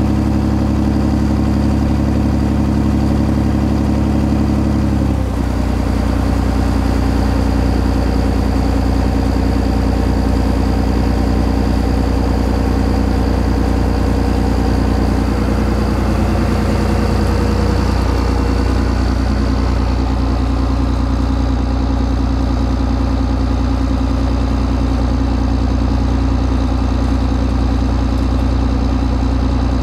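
Small fishing boat's engine running under way. About five seconds in, it is throttled back to a lower, slower note, and it eases down again a little past halfway to a steady low run.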